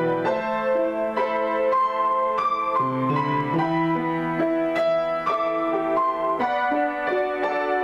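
Solo grand piano improvisation: chords held under a melody, with new notes struck about twice a second and left to ring.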